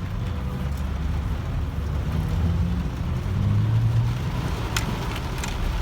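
Steady low vehicle rumble under a light hiss of heavy rain, with two sharp ticks near the end.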